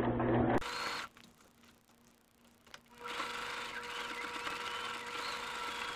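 Electric sewing machine running a wide zigzag stitch through waistband elastic and stretch knit, stopping after about a second and starting again about three seconds in.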